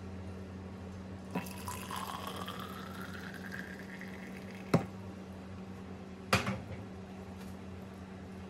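Liquid poured into a vessel, the pitch of the pour rising steadily over about three seconds as it fills. A sharp clink follows, then a second knock with a short rattle.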